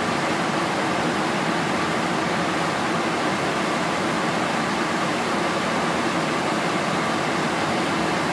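Steady rush of airflow and engine noise heard inside an aircraft in flight, an even drone with no changes.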